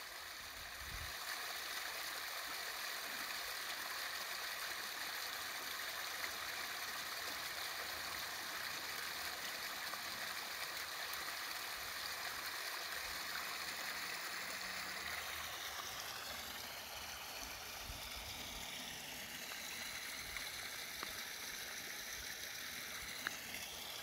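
Small meltwater waterfall running down a rocky slope, a steady sound of flowing and splashing water.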